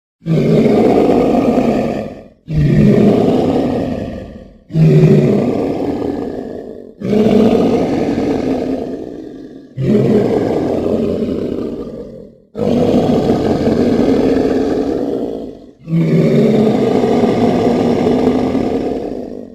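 Seven dinosaur-style roars in a row, sound-effect calls imagined for the Kasai rex. Each starts loud and fades away over two to four seconds, and the later ones last longer.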